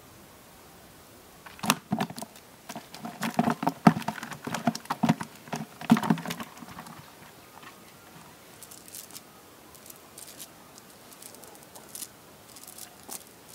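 Freshly caught fish thrashing in a plastic bucket with a little water, a quick irregular run of splashes and knocks against the bucket walls for about five seconds. After that only faint light rustling and ticking, as of a nylon cast net being handled.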